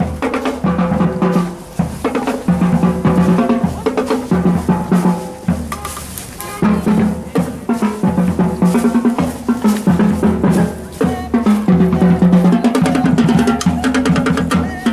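Marching band playing: snare and bass drums keep a steady beat under repeated low brass notes from the sousaphone and higher horn lines.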